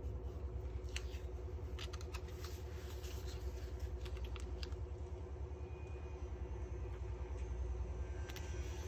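Steady low hum, with scattered soft clicks and rustles of paper stickers being peeled and pressed onto a notebook page.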